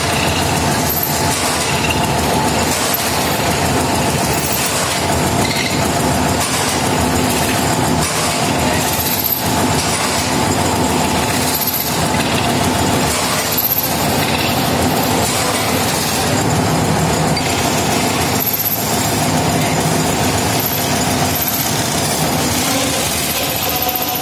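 Metal spinning lathe running steadily while a long hand-levered tool is pressed against the turning steel lamp blank. It makes a loud, continuous mechanical noise with a faint steady hum of tones in it.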